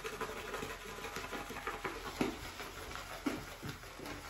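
Shaving brush whipping shaving soap lather in a ceramic bowl: a dense, irregular wet crackling and swishing, with a few louder ticks of the brush against the bowl.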